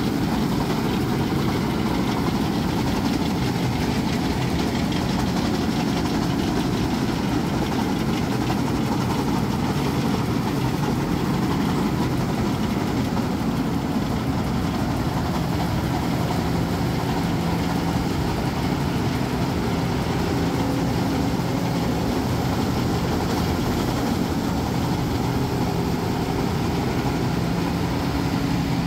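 Claas Crop Tiger 40 tracked combine harvester running steadily while cutting and threshing rice: a continuous diesel engine and machinery drone, with a low hum that settles in about halfway through.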